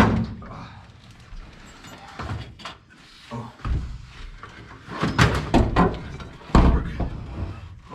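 A run of knocks and clunks from parts being handled inside a car's interior, with a sharp bang at the very start and heavier thumps about five and six and a half seconds in.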